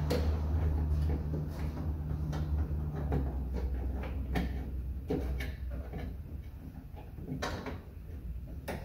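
Irregular clicks, knocks and scrapes of hands working a rubber window run seal into the steel glass channel inside a square-body C10 truck door. A low steady hum runs underneath, with a slightly higher tone in it that stops about three seconds in.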